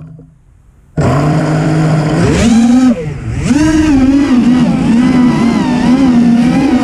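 The Wizard FPV racing quadcopter's motors and propellers start up suddenly about a second in and lift off. Their whine rises, dips, then keeps wavering up and down in pitch with the throttle as the quad flies low.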